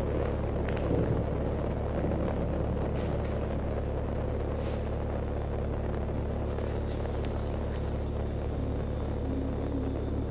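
Steady low rumble with a constant hum, and a few faint clicks scattered through it.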